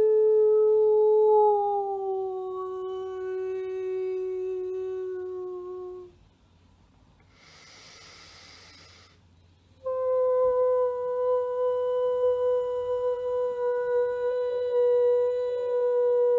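A woman singing long, held vocal tones as a healing mantra, rich in overtones. The first note slides slightly lower and ends about six seconds in. A breath follows, then a new, slightly higher note is held steadily to the end.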